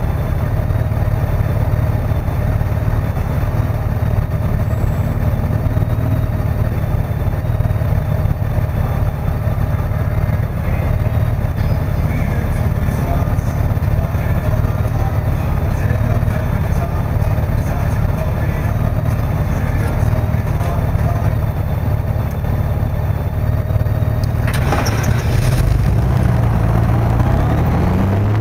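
Motorcycle engine idling with a steady low rumble while stopped, then revving up with rising pitch and a rush of wind noise as the bike pulls away near the end.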